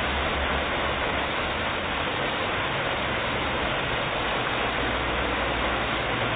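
Steady rush of river water, an even noise with a low rumble beneath it.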